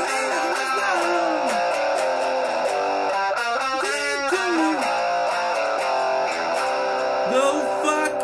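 A Les Paul-style electric guitar playing a song: held chords with melodic lines that bend up and down, in three spells at the start, in the middle and near the end.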